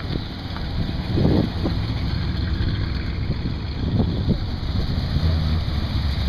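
Classic American car engines running as the cars roll slowly past, a steady low exhaust rumble with brief louder bursts about a second in and again about four seconds in; the rumble grows near the end as the next car comes up.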